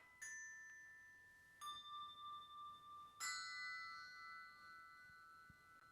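Three struck, bell-like tones about one and a half seconds apart, each a different pitch that rings on and slowly fades, with the three overlapping.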